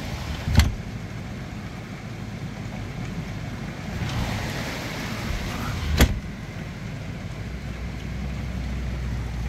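Heavy rain falling steadily during a windy thunderstorm, with two sharp knocks, about half a second and six seconds in. A low steady hum sets in near the end.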